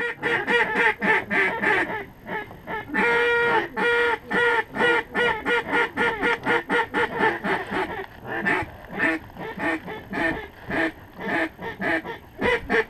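Duck call blown in a fast, steady run of quacks, about four or five a second, with a few longer drawn-out quacks about three seconds in.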